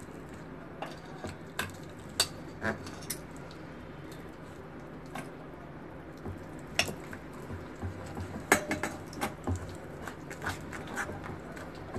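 A hand squishing and kneading thick bajji batter in a stainless steel bowl, with scattered sharp clicks and taps against the steel, busier and loudest from about two-thirds of the way in. A low steady hum lies underneath.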